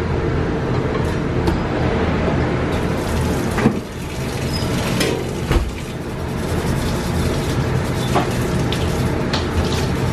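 Steady hum and rush of a commercial kitchen's extraction hood and running cooking equipment, with two sharp knocks on the steel counter about three and a half and five and a half seconds in.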